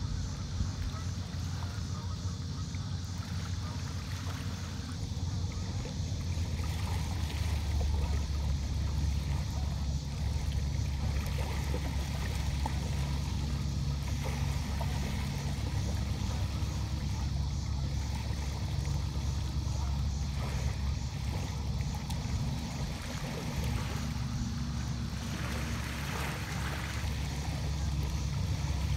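Steady low rumble of wind on the microphone, stronger from about six seconds in, with small waves washing against a rocky river shore.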